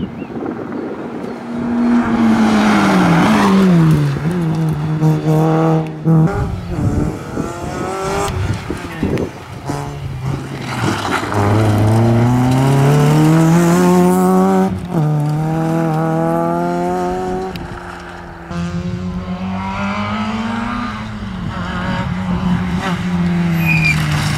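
Rally cars at full throttle on a special stage, one after another. The engines rev up and drop back again and again through gear changes, with a few short sharp cracks between the revs.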